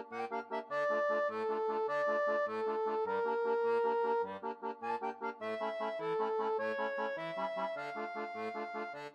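Background music: a melody of held notes over a steady alternating bass-and-chord accompaniment, stopping abruptly at the very end.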